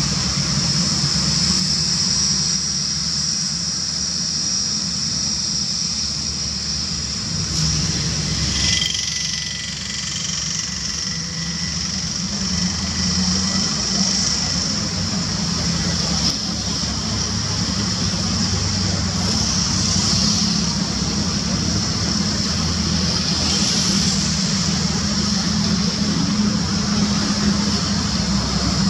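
Airbus A320-family airliner's jet engines running at idle while it taxis: a steady high-pitched whine over a low rumble.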